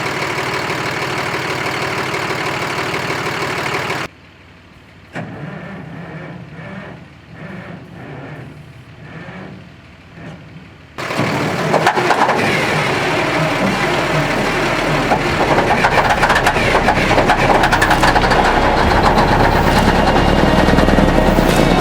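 Engine of a 1972 Wagner L120 log loader being brought back to life. After a few seconds of steady machine noise that cuts off abruptly, the engine is cranked over with a rhythmic chugging about two beats a second. About eleven seconds in it catches and runs loudly, growing louder as it picks up.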